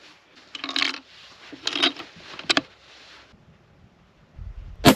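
Rustling and a few sharp clicks of handling at the shooting bench, then, just before the end, a single sharp rifle shot from a Fierce Carbon Rival hunting rifle, the loudest sound.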